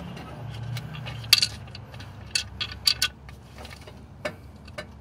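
Small clicks and taps of plastic parts being handled as a new distributor cap's carbon brush, resistor and seal are fitted into it by hand. A handful of sharp clicks, the loudest about a second and a half in, over a low steady hum.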